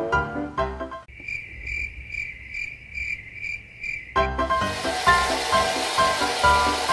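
Background music stops about a second in and gives way to a cricket-chirping sound effect: one steady high chirp pulsing about twice a second for some three seconds. This is the comedy 'crickets' gag after a failed attempt. Music with a beat then comes back in.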